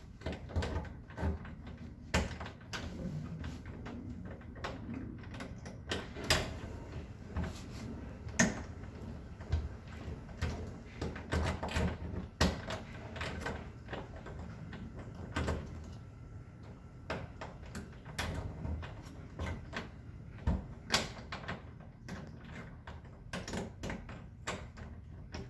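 Irregular clicks, taps and rattles of a locked bathroom doorknob lock being worked at with a tool in an attempt to open it.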